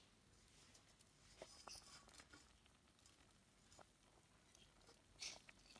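Near silence, broken by a few faint light clicks of metal tongs against an aluminium pasta pot as they push spaghetti down into the water. There is a brief, slightly louder hiss-like noise near the end.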